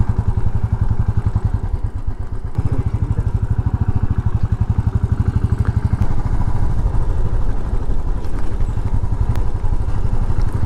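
Motorcycle engine running steadily under way, its exhaust beat pulsing evenly, easing briefly about two seconds in.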